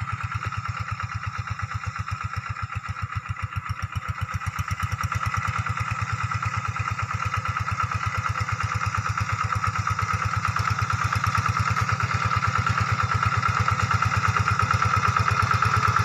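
Two-wheel hand tractor's single-cylinder diesel engine chugging steadily under load as it works the field. It grows gradually louder as it comes closer.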